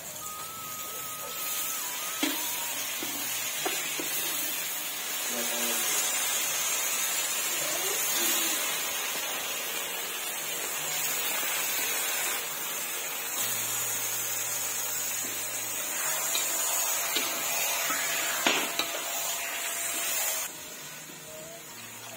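Goat meat and spice paste sizzling in a hot metal wok, with a metal spoon now and then scraping and knocking against the pan. Near the end the sizzle falls away suddenly as water is poured in.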